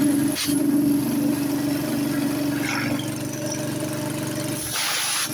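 Small gasoline engine of an air compressor running at a steady speed with its fuel petcock turned off, so it is running on the fuel left in it and will soon stall. A short hiss near the end.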